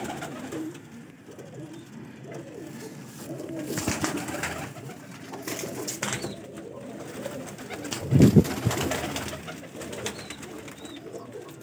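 Domestic pigeons cooing in low, irregular murmurs, with a louder low burst about eight seconds in.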